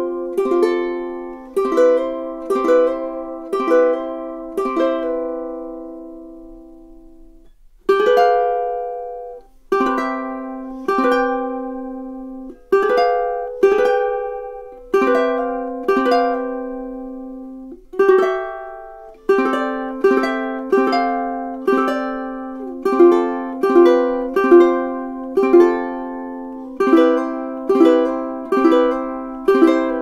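Uma all-solid mahogany concert ukulele played unaccompanied, the later playing on the pineapple-bodied one. Chords are plucked about twice a second and left to ring out to a short pause about seven seconds in, then a tune of single notes and chords goes on to the end.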